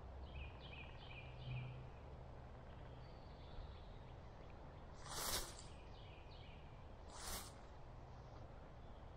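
A bird calling in short runs of four or five quick, high, downslurred chirps, twice, over quiet woodland ambience. Two brief rushes of noise about five and seven seconds in are louder than the calls.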